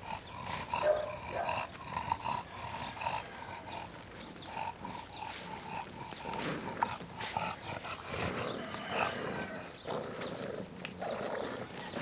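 English Bulldog puppies giving short, repeated squeaky whines and cries.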